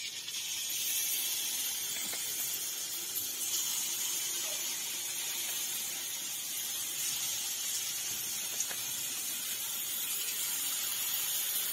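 Ladlefuls of batter deep-frying in hot oil in a steel kadai, a steady high sizzle that starts as the batter goes in and holds evenly.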